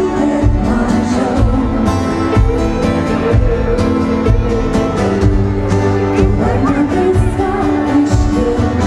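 Live pop music played loud over a concert sound system: singing over a band with a steady low beat.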